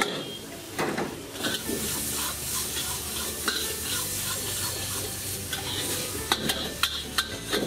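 Metal spatula and ladle scraping and clanking against a steel wok as rice and vegetables are stir-fried over a gas flame. Food sizzles steadily underneath. There are sharp clanks about a second in and a quick run of them near the end.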